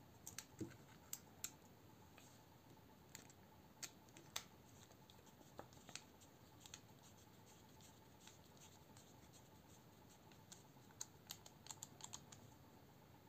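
Faint, scattered clicks and small metallic ticks of a folding knife being taken apart by hand, as a Torx bit driver and small steel parts knock together at the pivot. The clicks come in a quick cluster near the end.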